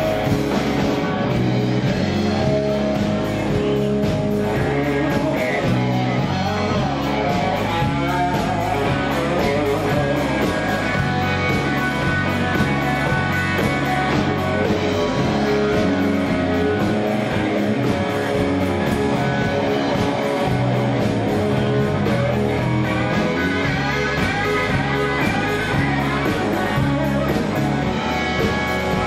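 Live rock band playing an instrumental break: a Stratocaster-style electric guitar plays lead over a moving bass line and drums.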